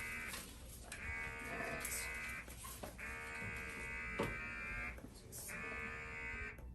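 Electric suction-cupping device's pump buzzing in on-off cycles of one to two seconds with short pauses, as it pulls suction on the skin and releases it. There is one brief click near the middle.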